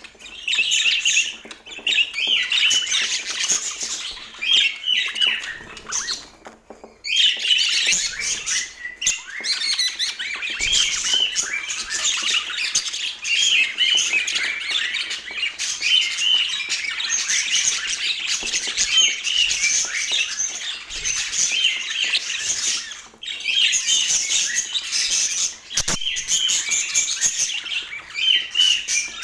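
A flock of budgerigars chattering, with many short, high calls overlapping without a break except for two brief lulls, about a quarter of the way in and again about four-fifths of the way in.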